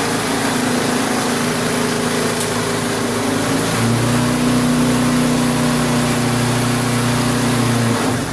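Single-cylinder Briggs & Stratton 3.5 hp lawnmower engine running steadily, its speed rising about four seconds in, then its steady note stopping near the end. It runs well on its first start in years, once its ignition points, spark plug and flywheel air gap have been re-set.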